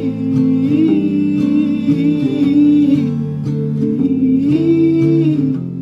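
Song with strummed acoustic guitar and a sung melody holding long, gliding notes.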